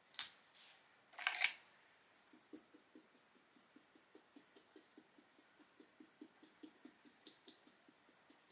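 Two sharp clicks in the first second and a half, then faint, quick dabbing of a paint applicator on a vinyl reborn doll head, about three to four soft taps a second, as thin paint is pounced on to build up skin mottling.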